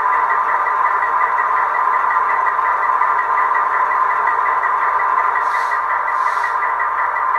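Diesel locomotive engine sound played by an ESU LokSound V4 decoder through the small speaker of an H0-scale model locomotive: a steady, thin-sounding rumble with a fine even throb. Two short hisses about a second apart come near the end.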